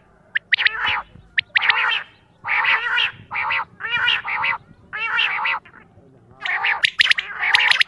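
Quail calling: a quick series of short calls, each about half a second long, with a brief pause about six seconds in.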